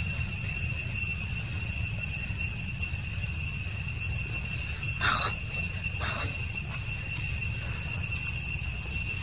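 Steady high-pitched drone of forest insects, several constant tones, over a low steady rumble. Two short calls stand out about five and six seconds in.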